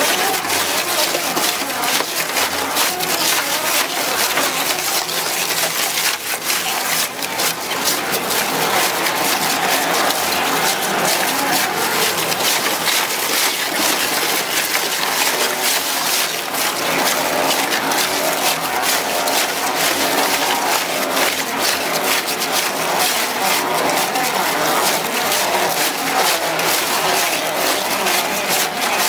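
Two-shaft tyre shredder's toothed cutter discs tearing whole car tyres apart: a loud, unbroken machine din full of sharp cracks and crunches as the rubber is ripped.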